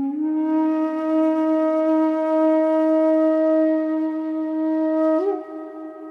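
Slow background music led by a wind instrument, which holds one long, steady note for about five seconds, then moves up to a higher, softer note with a slight waver.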